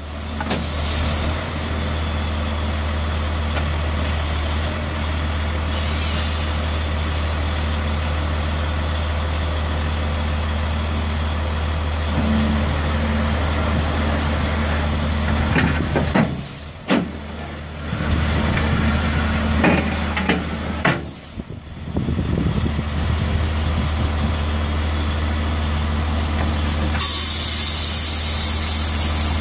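Lorry's diesel engine running steadily, dropping away briefly twice in the middle. A loud hiss of air comes in near the end.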